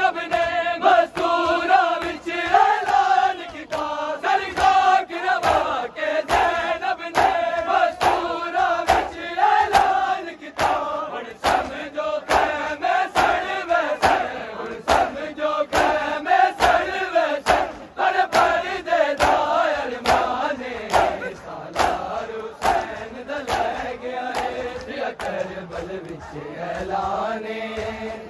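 Large crowd of men chanting a noha in unison, with hands slapping on bare chests (matam) keeping a steady beat.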